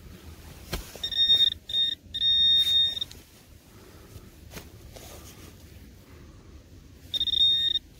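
Handheld metal-detecting pinpointer sounding a steady, high-pitched alert tone in bursts as it is passed over a metal target in a dug hole, here a piece of aluminium. There are three short bursts in quick succession about a second in, and another about seven seconds in.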